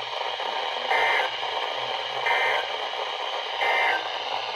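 Emergency Alert System SAME end-of-message data signal: three short digital data bursts about 1.3 seconds apart over steady radio static hiss, marking the end of a weather alert.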